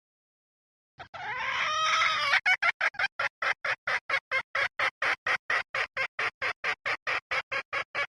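Red junglefowl hen's decoy call. After a second of silence comes one drawn-out cackle, then a fast, even run of short clucks, about four a second.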